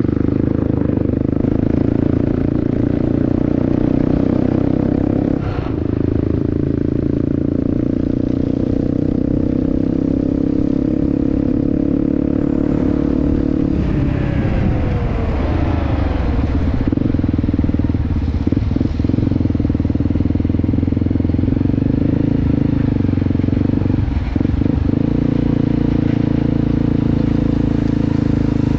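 Motorcycle engine running steadily while riding on the road, with road and wind noise. About halfway through, the engine note falls away in a short falling whine as the bike slows.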